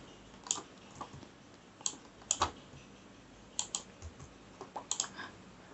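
Computer keyboard keys tapped in faint, irregular clicks, some in quick pairs, as lines of code are deleted.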